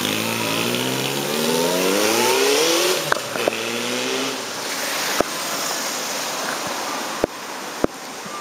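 Honda CB1100's air-cooled inline-four through a Moriwaki aftermarket exhaust, accelerating away with its pitch rising for about three seconds, then dropping on an upshift and fading as the bike rides off. The note is not very loud. A few sharp clicks come later on.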